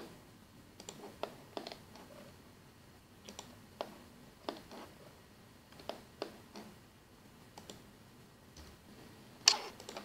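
Computer mouse and keyboard clicks: scattered single sharp clicks at irregular intervals, with a louder one near the end.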